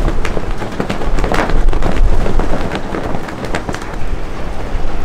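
Strong wind buffeting the microphone in a dust storm: a heavy, continuous low rumble broken by many sharp crackles from gusts.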